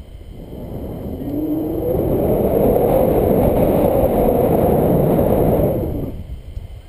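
Wind rushing over the microphone of a camera on a paraglider in flight, building up about a second in, holding strong, then dropping away near the end as the airflow changes.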